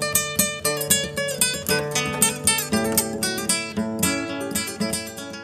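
Bugis kecapi, a two-string plucked boat lute, playing a quick run of plucked notes that gradually gets quieter.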